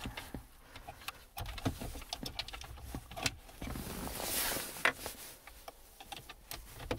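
Hard plastic clicks and knocks as a car's HVAC control panel is pushed into the dashboard and fastened with a metal nut driver, with a brief rustle about four seconds in.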